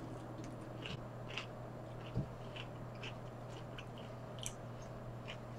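A person chewing food close to the microphone, with scattered faint clicks from the mouth and a single soft thump about two seconds in.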